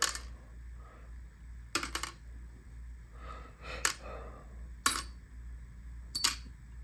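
Small steel revolver parts (springs, screws, hammer, bolt) dropped one by one into an ultrasonic cleaner's basket: about five sharp metallic clinks, a second or two apart.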